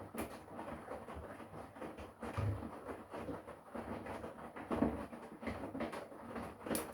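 Front-loading washing machine in its wash cycle: the drum turns and wet laundry and soapy water slosh and tumble in an uneven rhythm, with soft thuds as the load drops.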